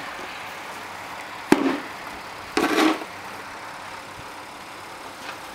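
Snow shovel blade knocking and scraping on the asphalt driveway: a sharp knock about a second and a half in, then a second short hit and scrape about a second later.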